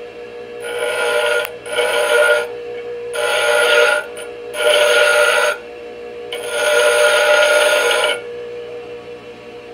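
Bench grinder running with a steady whine while a metal rod is pressed against its grinding wheel in five passes, each a rasping grind of one to two seconds. The last pass ends about eight seconds in, leaving only the motor running.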